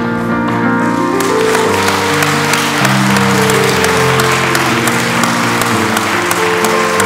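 Audience applause breaking out about a second in and carrying on over slow music with held chords.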